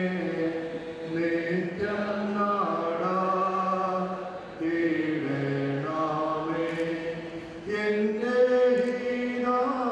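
Slow hymn sung by voices in long held notes, the pitch moving from note to note about once a second.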